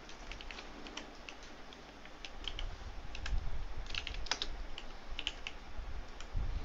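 Typing on a computer keyboard: irregular single keystrokes and short quick runs of clicks. A low rumble comes in underneath about two seconds in.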